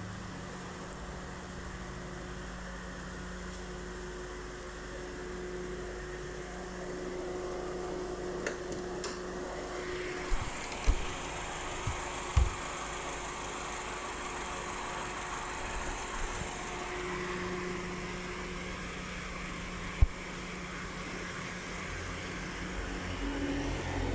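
Mitsubishi Cedia's 4G15 GDI engine idling steadily, freshly repaired. A few sharp knocks come around the middle, with one louder knock near the end.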